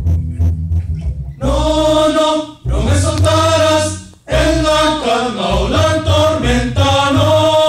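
Rondalla of acoustic guitars and double bass playing, with the men's voices joining in a Spanish-language hymn about a second and a half in and singing phrase by phrase with short breaths between.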